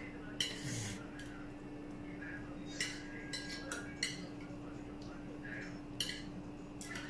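Metal tongs clinking against stainless-steel serving dishes as slices of steak are picked up and laid down, a handful of scattered clinks over a steady low hum.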